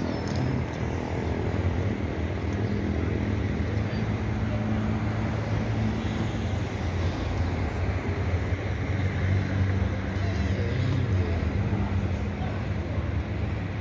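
Steady low rumble of city traffic, with vehicle engines running.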